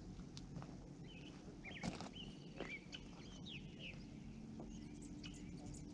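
Birds chirping, several short rising and falling calls, over a steady low rumble, with a sharp click about two seconds in.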